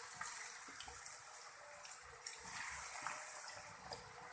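Hot oil sizzling and crackling in a kadhai with cumin seeds frying in it: a steady hiss dotted with small pops, a little louder about halfway through.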